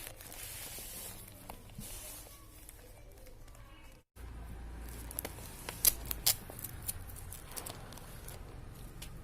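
A cardboard parcel being handled and opened: soft rustling of the packaging with a few sharp clicks, and the sound cutting out briefly about four seconds in.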